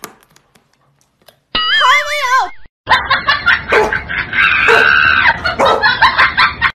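A brief wavering, falling tone about a second and a half in, then about four seconds of loud shrieking laughter.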